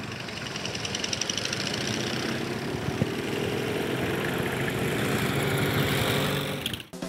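Engines of a group of motorcycles and a Vespa scooter running and pulling away together, growing gradually louder with a slight rise in pitch, then cutting off abruptly near the end.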